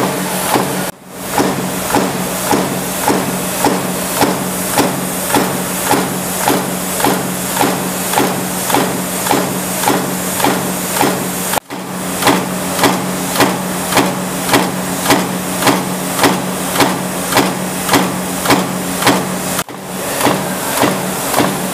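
A 110-ton SINO mechanical stamping press running a progressive die at 100 strokes a minute: a regular metallic impact as the die closes, a little under two a second, over a steady low motor hum. The sound drops out briefly three times.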